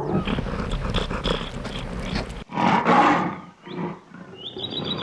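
Lion roaring and growling. The sound cuts off abruptly about two and a half seconds in, then a loud call comes around three seconds in, followed by weaker ones. Short bird chirps come near the end.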